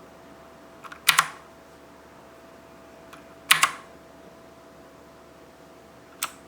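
Clicky blue-switch mechanical keyboard (Abko HACKER K600 Hades): single keys pressed one at a time, a sharp double click about a second in and another about three and a half seconds in, then a lighter click near the end. A faint steady hum runs underneath.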